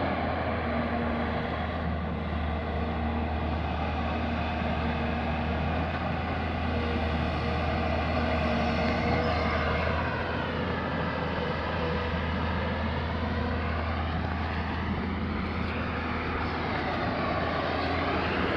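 Tata Hitachi excavator's diesel engine running steadily under work. About halfway through, a hollow whooshing tone sweeps down and back up.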